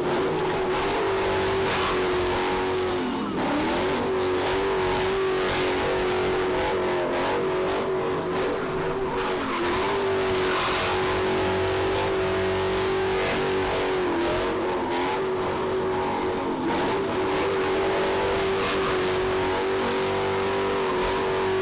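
A car engine held at high revs while its tyres spin and squeal in a drift, holding a steady pitch. The revs dip briefly and recover about four times, and tyre noise runs underneath throughout.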